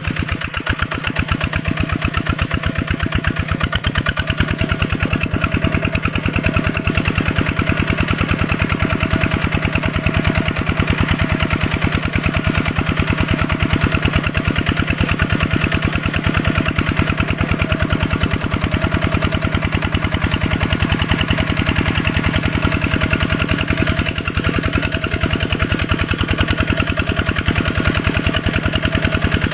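Small tractor engine running steadily with a rapid, even beat.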